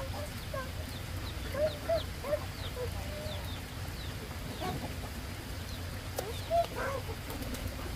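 Chickens clucking in short calls, with many short, high, falling chirps among them.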